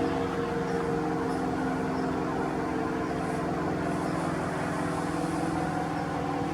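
A vehicle engine running steadily at idle: a low, even hum with a few steady tones.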